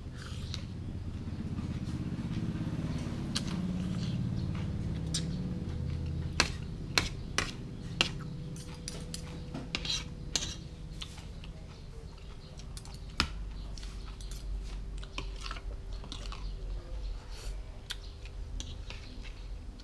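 Metal spoon and fork clinking and scraping on a ceramic plate of rice, with chewing in between. There are several sharp clinks, most of them bunched in the middle.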